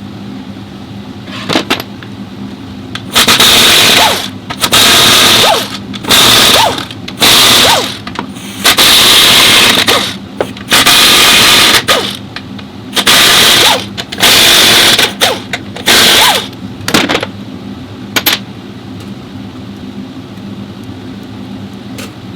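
Pneumatic power tool in about ten loud bursts of roughly a second each, with short gaps between them, over a steady low hum.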